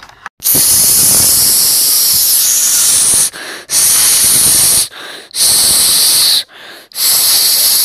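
Loud white-noise static dubbed in as a censor sound, in four long bursts with short breaks between them, the first lasting nearly three seconds.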